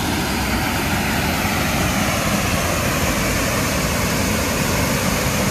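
Steady rushing roar of a waterfall, with no breaks or single events.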